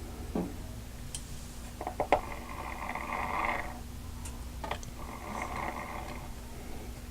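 Breathing near the microphone, two long breaths a couple of seconds apart, with a few light clicks about two seconds in and again near five seconds.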